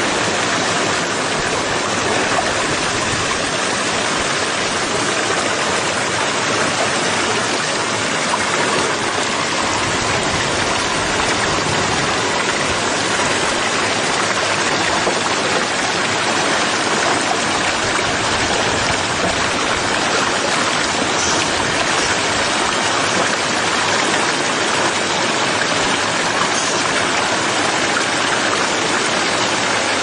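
Small waterfall cascading over rocks into a stream: a steady, loud rush of splashing water close by.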